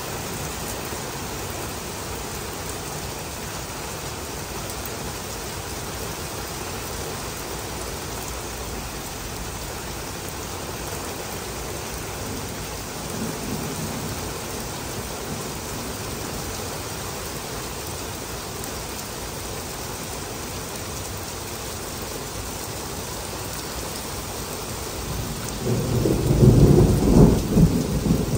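Heavy rain falling steadily on pavement and a pickup truck's bed cover. A faint low rumble of thunder comes about halfway through, and a loud rolling rumble of thunder begins near the end.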